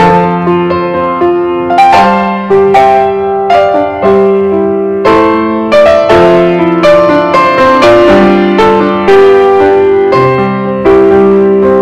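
Background piano music: a gentle melody of struck, sustained notes over a slow bass line.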